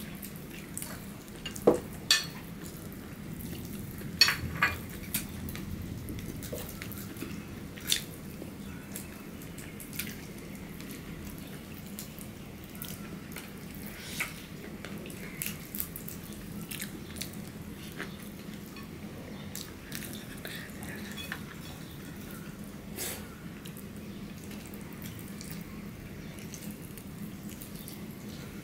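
Eating by hand: scattered wet clicks of chewing and lip smacking, and fingers mixing rice on ceramic plates, over a steady low hum. The sharpest clicks come in the first few seconds.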